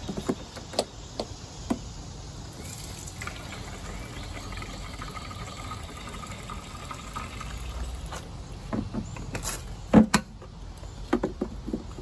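Gasoline pouring steadily from a plastic gas can into a lawn mower's fuel tank for several seconds, with a few clicks and knocks of the fuel cap and can being handled before and after, the loudest about ten seconds in.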